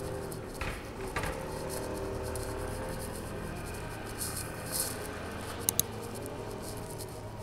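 Street ambience with a steady low hum and faint held tones of music, broken by two sharp clicks close together about two-thirds of the way through.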